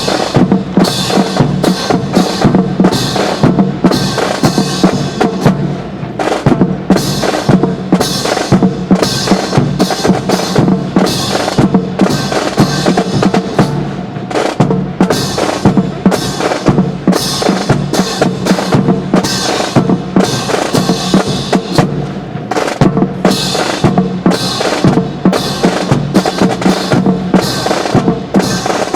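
Marching snare and bass drums beating a steady, quick cadence with occasional rolls, keeping time for a drill.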